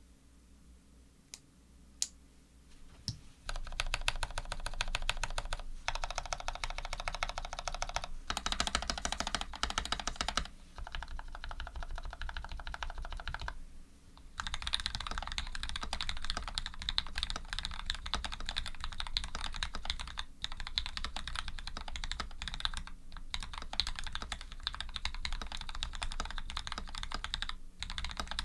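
Custom Canoe v2 mechanical keyboard with lubed Gateron Ink linear switches, an aluminium plate and PBT keycaps being typed on. A few single keystrokes are followed by fast continuous typing from about three seconds in, with a short pause about halfway.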